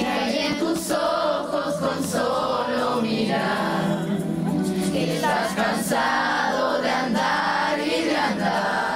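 A song playing: singing voices over music, several voices sounding together.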